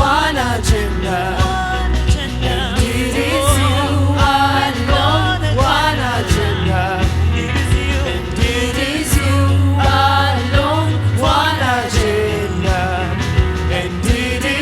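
Christian worship song with voice singing over a band, with a steady bass line and regular drum beats.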